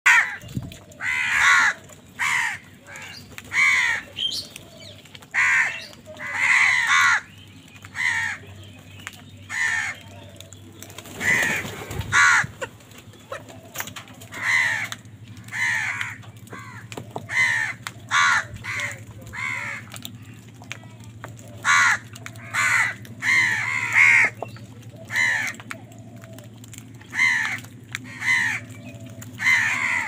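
A flock of house crows cawing over and over, harsh calls coming about once a second, some in quick pairs. About eleven seconds in there is a brief rustling rush, and a faint steady low hum lies underneath.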